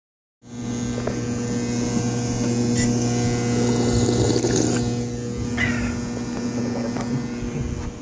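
Elkay drinking fountain's electric chiller humming steadily at a mains-hum pitch, with a brief rush of water splashing into its stainless basin near the middle.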